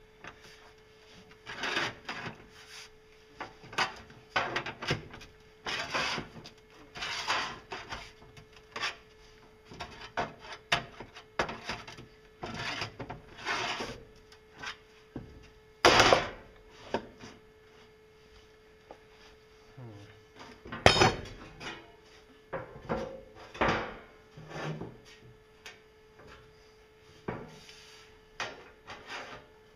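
Aviation snips cutting thin sheet steel: a crisp crunching snip every second or so, in runs broken by short pauses. Two sharp knocks stand out, one about halfway through and another about five seconds later.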